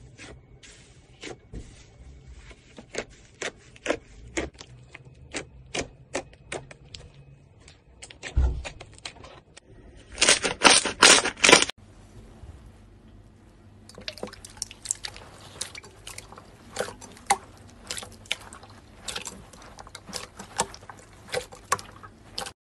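Slime squeezed and pressed by hand, making irregular wet clicks and pops. A dense flurry of crackling comes about ten seconds in and stops abruptly, and after a short quieter stretch the popping starts again.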